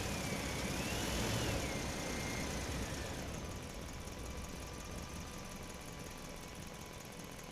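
Cartoon train sound effect: a steady rumbling run that slowly fades, with a high whistle-like tone that wavers up and down and then drops away about three seconds in.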